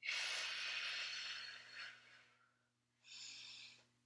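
A woman's hard breathing during an ab crunch exercise. A long forceful breath out lasts nearly two seconds, then after a pause comes a shorter, quieter breath about three seconds in.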